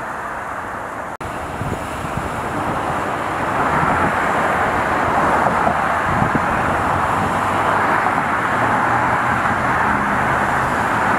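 Steady roadway traffic noise, the rush of passing vehicles. It cuts out for an instant about a second in and grows louder a few seconds later.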